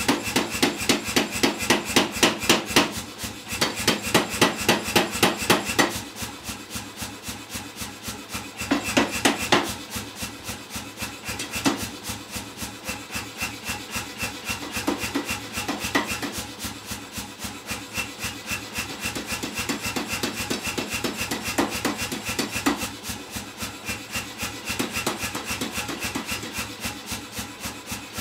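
Power hammer striking a red-hot steel bar between its dies in a rapid, steady run of blows, several a second, heavier near the start and around nine seconds in and lighter in between. The hammer is forging offset steps into the bar to rough out the snout, brow and horn sections of a figure head.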